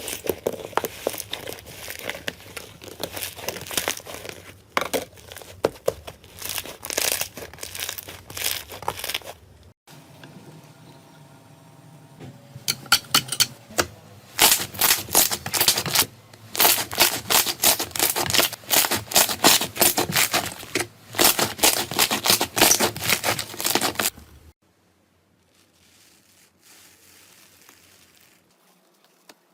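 Slime being squeezed and stretched by hand, making a dense run of sticky crackles and small pops. There is a quieter spell about ten seconds in, then a second dense run, and the sound turns faint for the last few seconds.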